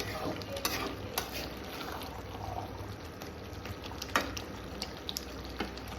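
A steady watery hiss with scattered sharp clicks and knocks, the loudest about four seconds in.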